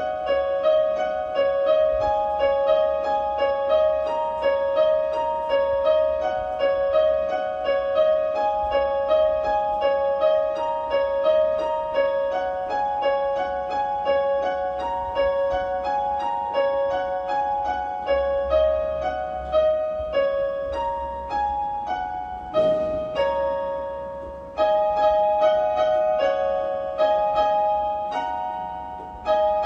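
Electronic keyboard with a piano voice, played as a slow improvised melody over held notes on the black keys only, which gives a pentatonic sound. The notes ring in the middle register and die away twice, about two-thirds through and just before the end, with a brief soft noise shortly before the first of these pauses.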